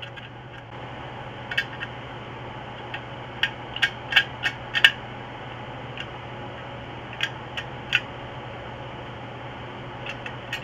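Sharp metallic clicks and knocks from a 1980 Yamaha SR500 muffler's end cap and perforated inner tube being handled and fitted together. They come in a quick run of about six a little after three seconds in, with a few more scattered before and after.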